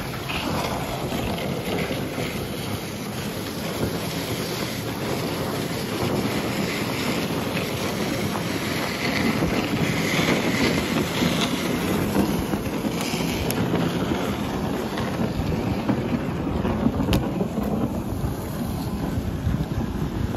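Wind buffeting the microphone: a steady rumbling noise with no distinct events.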